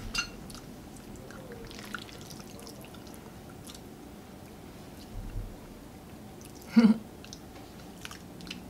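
Eating and serving sounds of creamy carbonara spaghetti: soft wet squelches as the noodles are lifted with a plastic pasta server, chewing, and light clicks of utensils on bowls. There is one short, louder sound about seven seconds in.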